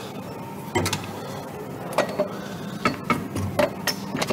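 Short metal clicks and knocks, about eight at uneven spacing, as the barrel of a KORD 12.7 mm heavy machine gun is slid and seated into its receiver by hand.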